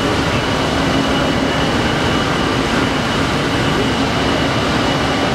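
Bullard Model 75 Cutmaster vertical turret lathe running: a steady mechanical drone with a constant whine over it, holding an even speed.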